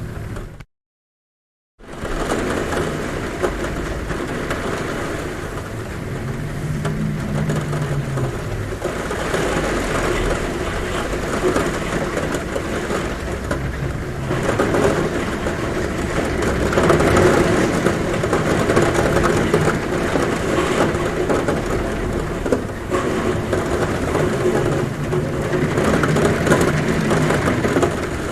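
Heavy rain pouring on a roof: a loud, dense, steady hiss, with a low hum from the wind that swells and fades a few seconds in. The sound cuts out completely for about a second near the start.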